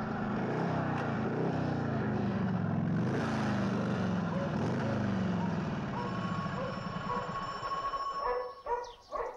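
Motorcycle engine approaching and slowing as it pulls up, its pitch wavering up and down with the throttle, then dying away. A dog barks a few times near the end.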